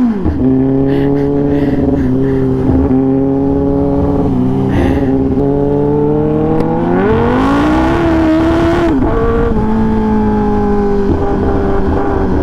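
Kawasaki Ninja ZX-10R's inline-four engine through an SC-Project titanium full-system exhaust, very loud, at a steady cruise. About seven seconds in the pitch rises as the rider pulls harder, holds for a couple of seconds, then drops back to a steady cruise.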